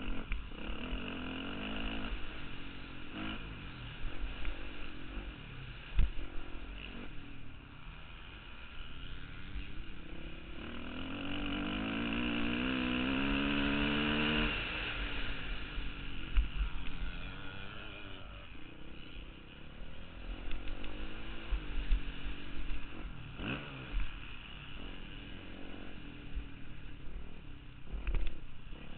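Dirt bike engine on a motocross track, revving up and down with the throttle, heard from a camera on the bike with wind noise. About halfway through it climbs steadily in pitch for a few seconds, then drops back; a few sharp thumps come from the bike hitting bumps.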